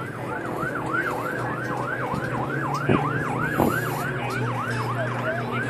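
Airfield crash-rescue fire truck's siren in a fast yelp, its pitch sweeping up and down about four times a second over a steady low drone.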